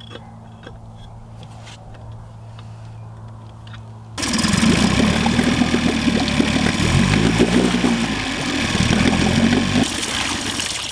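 Mercury 8 hp four-stroke outboard motor running with its lower unit in a tub of water, the propeller churning the water. It comes in loud about four seconds in, after a low steady hum, and its engine speed rises and falls in the middle.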